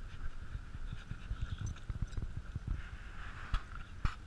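An American Bulldog–Pit Bull mix and an Australian Shepherd play-wrestling at close range: irregular scuffling and bumping on grass, with two sharp clicks near the end.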